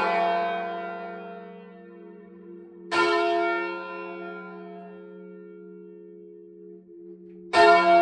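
Tower bells of an eight-bell ring (tenor 18-2-0 in F) heard close up in the belfry: the change ringing dies away, then a single bell is struck twice, about three seconds in and again near the end. Each stroke rings on and slowly fades over a long low hum.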